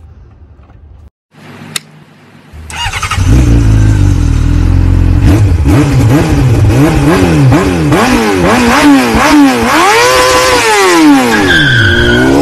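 An engine revved hard up and down over and over, its pitch rising and falling in quick sweeps, starting about three seconds in after a short click.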